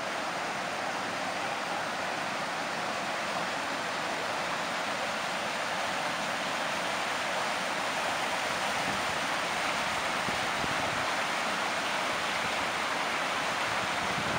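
Rocky stream rushing over small cascades: a steady, even rush of water.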